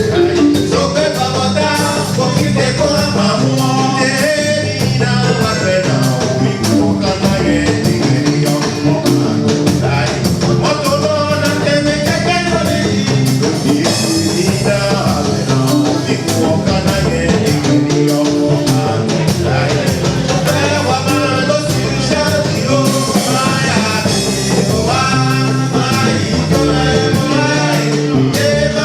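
A song playing: a band with a steady beat, with singing and melodic lines over it.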